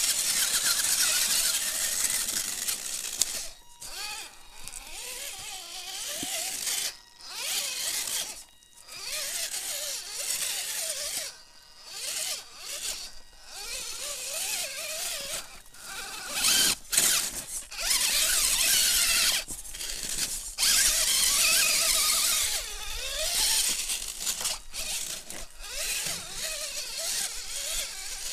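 Radio-controlled rock crawler's electric motor and gearbox whining in repeated bursts of a few seconds, stopping and starting with the throttle, its pitch wavering up and down as it climbs over rocks.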